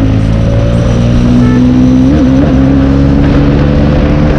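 Motorcycle engine running open-piped with its exhaust silencer removed, under way at a steady note that dips and recovers briefly about two seconds in.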